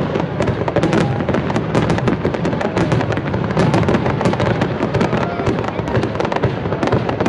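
High-altitude aerial fireworks display: many shells bursting in quick succession, a dense, rapid crackle of bangs and pops with no let-up.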